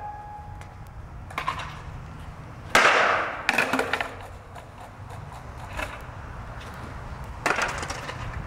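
Skateboard knocking and clattering on concrete several times, the loudest knock about three seconds in and another near the end, over a steady low rumble from the camera mic.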